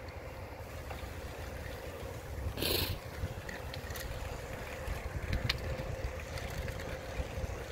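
Wind rumbling on the microphone over tyre noise from a bicycle rolling along an asphalt bike lane, with a faint steady hum underneath. A short rattle about two and a half seconds in, and a few light clicks later.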